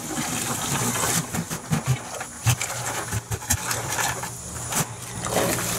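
A white plastic five-gallon bucket handled upside down to free a cooled block of beeswax: an irregular string of knocks and thumps, over a steady low hum.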